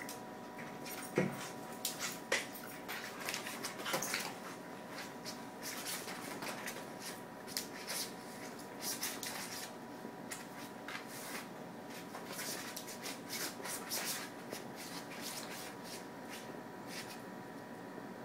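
A miniature schnauzer and a standard schnauzer puppy play-wrestling: irregular scuffling, scrabbling paws and claw taps on a wooden floor and a fabric mat.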